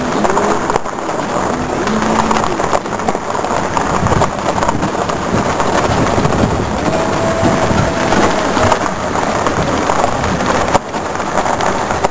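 Vehicle driving over a rough, rocky dirt road: loud steady road noise with frequent knocks and rattles from the jolting.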